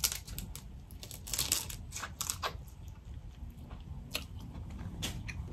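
Boiled crawfish head being eaten and picked apart: irregular crunching and chewing, with scattered sharp clicks of the shell.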